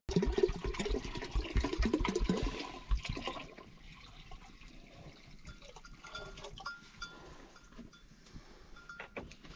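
Water poured from a plastic jerrycan into a metal pot, glugging loudly for about the first three and a half seconds. After that it goes quieter, with small knocks and clatter.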